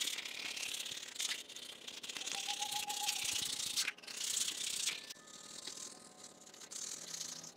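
Razor blade scraping across the wet cast-iron table of a drill press that is coated in degreaser. Steady, continuous scraping strokes, with a brief break about four seconds in.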